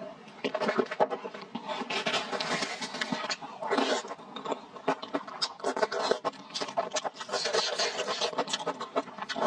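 Close-miked eating sounds: thick stir-fried rice noodles in a spicy chili sauce being slurped off a spoon and chewed, with a steady run of wet smacks and clicks.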